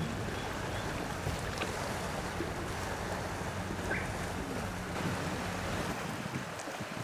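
Wind and waves over open sea, with a low steady engine hum from a passing ship that drops away near the end.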